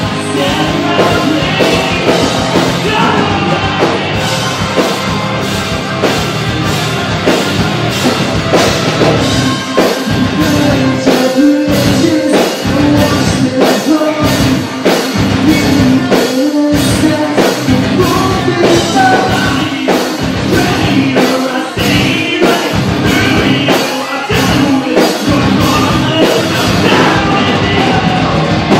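A hard rock / alt-metal band playing live and loud: electric guitars and a drum kit with a steady beat, and a singer's vocals over them.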